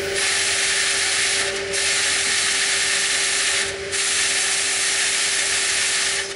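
Compressed-air duct-cleaning hose hissing steadily inside sheet-metal ductwork, over a steady machine drone; the hiss breaks off briefly twice, about a second and a half in and near four seconds in.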